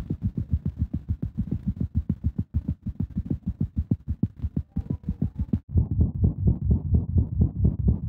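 A cat's heart heard through a stethoscope, beating fast with a normal lub-dub. About five and a half seconds in it switches to a heart murmur: louder beats with an extra whooshing sound between them, the sign of turbulent blood flow inside the heart.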